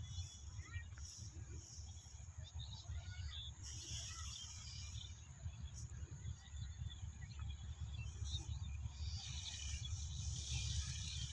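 Crickets and other insects chirring, with a few small bird chirps, over a low steady rumble.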